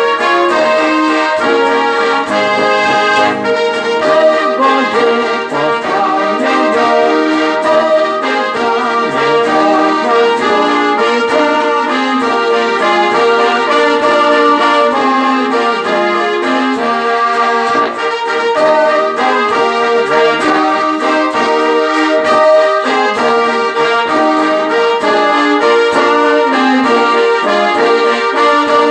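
Accordion and electric guitar playing an instrumental tune together, the accordion carrying the melody in sustained reedy chords over a steady beat.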